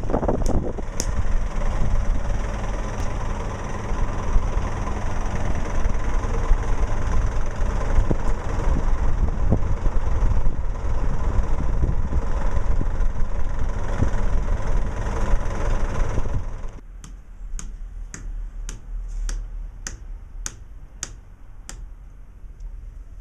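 A running engine with steady heavy noise, which cuts off abruptly about two-thirds of the way through. Then a run of sharp knocks, about two a second: a rubber mallet tapping stone paving slabs down into their sand bed.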